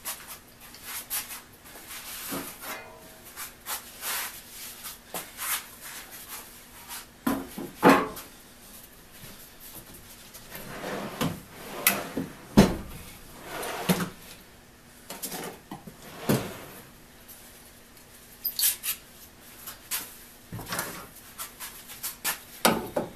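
Tools being handled on a wooden workbench: irregular knocks, clunks and scrapes, the loudest a few sharp knocks scattered through the middle, with no steady sawing rhythm.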